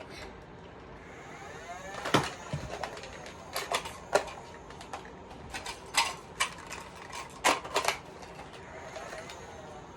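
Irregular clicks and knocks of a plastic Nerf toy blaster being handled through a quick gun-handling trick, a dozen or so sharp clacks spaced unevenly over a low steady hiss.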